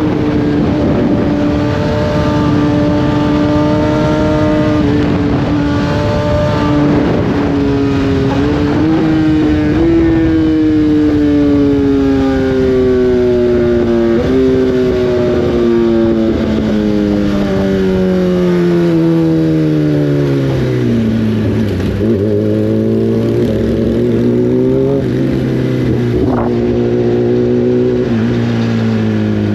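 Inline-four superbike engine running at steady revs over wind rush, stepping up a little a few times, then the revs fall smoothly as the bike slows, settling low about two-thirds of the way through before rising and falling gently once more.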